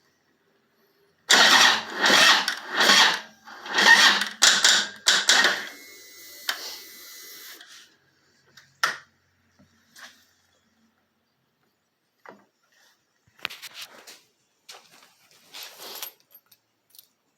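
Harley-Davidson Twin Cam 103 V-twin being cranked over slowly by its electric starter for about four seconds, heavy pulses coming with each compression stroke, and the engine doesn't fire. It is struggling: the lithium jump starter can't deliver enough current. A whir winds down after cranking stops, followed by a few scattered clicks.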